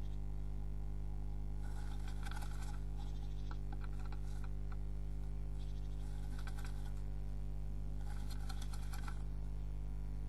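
A tit moving about inside a wooden nest box during nest building: four short spells of scratching and rustling clicks. A steady electrical hum runs underneath.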